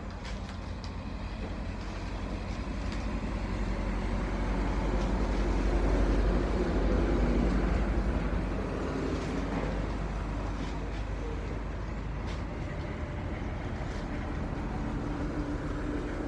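A vehicle engine running with a steady rumble. It grows louder to a peak about six to eight seconds in, then eases off a little.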